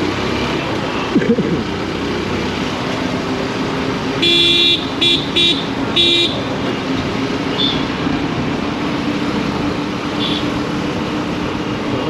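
Vehicle horn honking in road traffic: one longer blast about four seconds in, then three quick short toots, over the steady noise of traffic and engines.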